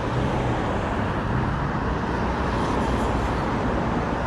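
Steady city street traffic noise, with the low hum of motor vehicles' engines coming and going.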